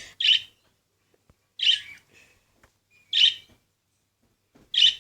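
Young male budgerigar giving short, sharp chirps, four of them about a second and a half apart.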